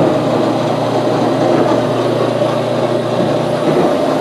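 Chip auger of a Haas VF1 machining center running: its motor turning the screw conveyor with a steady mechanical hum.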